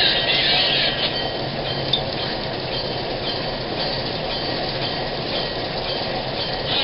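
Alco S1 diesel switcher's six-cylinder engine running steadily as the train rolls along, with a continuous rumble of wheels on the track. A high squeal from the wheels fades out within the first second.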